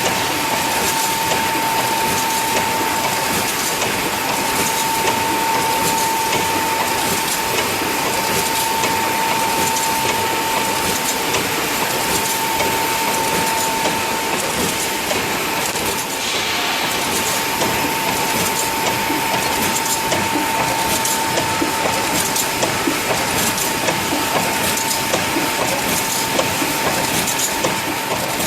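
Automatic wire mesh welding machine running: steady mechanical noise with a high, constant whine and rapid clicking.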